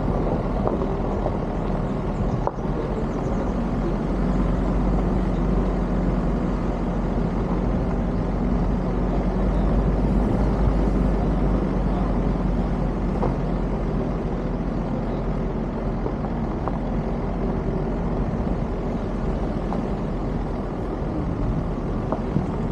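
Steady running of a vehicle engine with road and wind noise, heard from aboard while moving.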